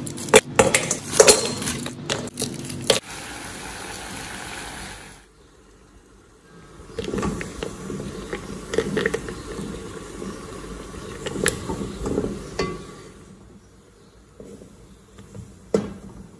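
Pieces of ruby chocolate bar clinking as they drop into a stainless steel bowl, then a short steady hiss. After a quiet gap, a silicone spatula scrapes and knocks against the steel bowl, irregularly, as the chocolate is stirred while it melts.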